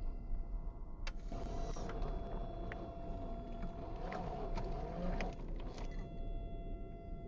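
Traxxas TRX-4 RC crawler's electric motor and gearbox whining under throttle for about four seconds, its pitch wavering up and down as it crawls over rocks, then cutting off.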